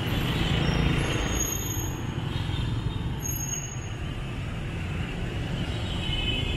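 Steady low rumble of city street traffic, with motorbikes and scooters passing close by.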